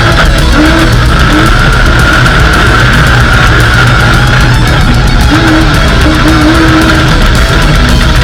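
Loud heavy metal music with a steady, dense mix.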